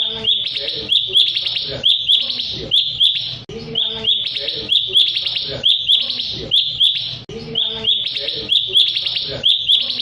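Recorded song of a cucak cungkok, played as a lure to make rival birds answer: short, bright, chattering phrases repeated one after another, about one a second, with no break.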